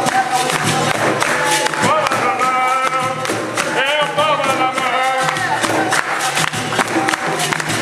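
Capoeira bateria playing: berimbaus over an atabaque drum and pandeiros, with hand-clapping and voices singing, the singing strongest in the middle.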